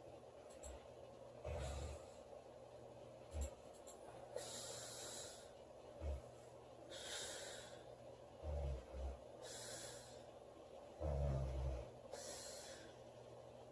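A girl snoring in her sleep: short low rumbling snores alternate with airy hissing breaths, about one breath every two and a half seconds.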